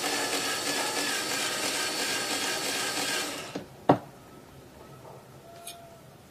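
Cordless drill with a thin bit running as it bores a small hole through a steel plate, then stopping about three and a half seconds in. A sharp click follows just after, then a few faint clicks.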